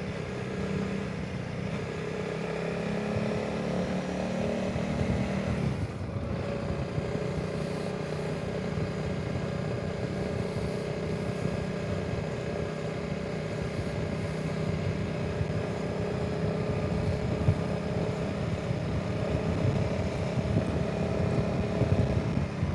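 Honda CRF300 Rally's single-cylinder engine running steadily under way, with wind noise on the microphone. The engine note breaks briefly about six seconds in, then carries on steady.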